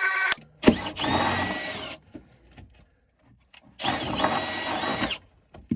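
Power drill boring a hole through the wall framing in two bursts of about a second and a half each, the motor whine rising as it spins up and falling as it stops; a hard cut that the driller finds no fun with the bits on hand.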